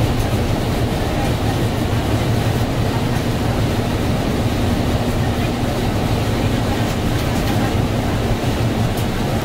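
Cabin noise inside a 2007 NABI 60-BRT articulated bus cruising at a steady pace: the Cummins Westport ISL G natural-gas engine's low, steady hum mixed with road and tyre noise.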